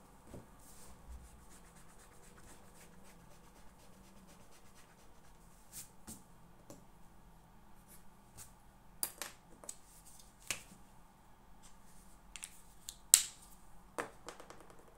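Scattered light clicks and taps of small objects handled at a study desk, sparse at first and more frequent in the second half, the sharpest click about 13 seconds in.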